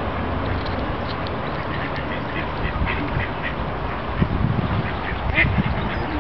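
Mallard ducks quacking, a few short calls scattered through, over steady low background noise.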